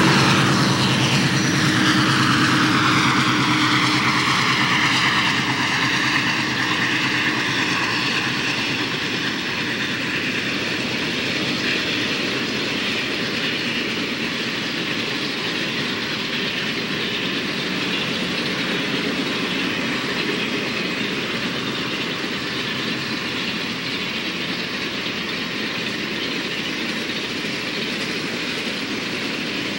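A diesel-hauled freight train passing close by. The locomotive goes past in the first few seconds, its sound falling in pitch. A long string of freight cars then rolls by with a steady clickety-clack of wheels over rail joints, the sound easing off slowly.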